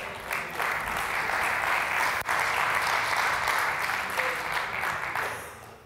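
Congregation applauding after a point in a sermon, a steady spread of clapping that dies away about five seconds in.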